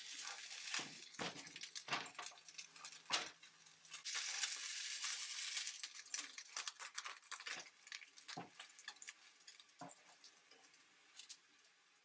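Tortilla quesadillas frying in oil in a nonstick frying pan: sizzling, with knocks and scrapes of a spatula against the pan as they are turned over. The sizzle swells about four seconds in, then thins out to scattered ticks.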